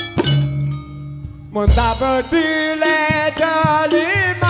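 Live band music. After a brief lull, a loud drum hit about a second and a half in brings back a wavering melody line over a steady drum beat, with a bending, sliding note near the end.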